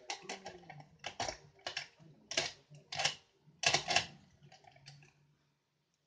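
Metal lock-picking tools clinking and clattering, handled in the hand and knocked against a lever sash lock held in a vice. The clicks are irregular and fade out near the end.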